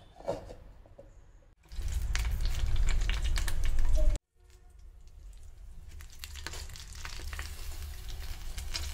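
Coconut oil sizzling and crackling under a banana leaf in a hot iron pan; after a sudden cut just past the middle, the sizzling starts again and grows as masala-coated fish lies on the leaf. A short knock comes before the sizzling starts.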